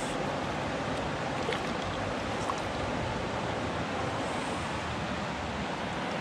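Small creek's water running steadily over riffles, an even rushing wash.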